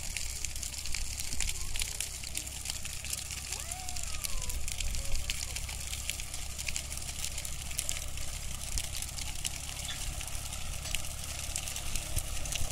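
Tractor engine running steadily as it approaches, under the dense crackling of a pile of burning olive branches.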